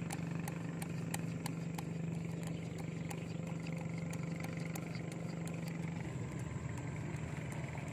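A steady engine drone running on throughout, its tone wavering about six seconds in, with faint regular clicks about three a second over it.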